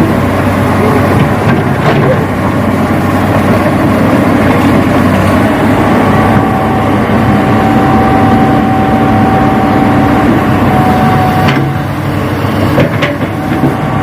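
Radio-controlled Hitachi model excavator's motors and drive running steadily, with a higher held whine for a few seconds in the middle and a few sharp clicks near the end.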